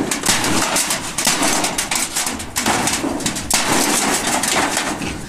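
Claw hammer striking a galvanized sheet-metal trunk as it is knocked apart, in a quick irregular run of sharp metallic blows, with the loosened panels banging against each other.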